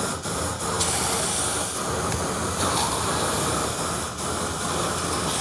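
Two Boring Company Not-A-Flamethrower propane torches firing at once, with a steady loud hiss of burning propane jets.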